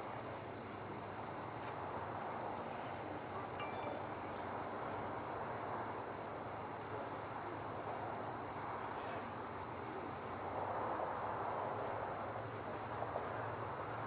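Steady outdoor background noise with a constant high-pitched whine running under it and a few faint ticks.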